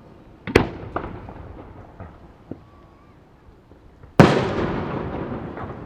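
Aerial firework shells bursting: a sharp bang about half a second in and a few smaller pops, then the loudest burst about four seconds in, with a long rumbling tail that fades slowly.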